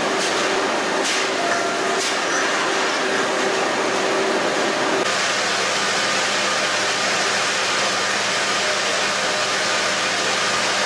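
Steady din of crab-processing machinery: conveyors and equipment running, with a few sharp metal clanks in the first two seconds. About five seconds in the sound changes to a steadier hiss over a low hum, where the steaming cooking tanks and tray conveyor run.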